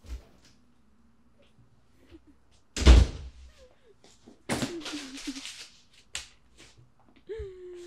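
A loud slam about three seconds in, with a few lighter knocks before and after it.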